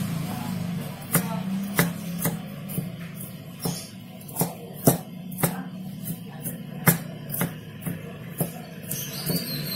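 Large knife chopping garlic cloves on a thick wooden chopping board: a string of sharp wooden knocks, about two a second and a little uneven, over a steady low hum.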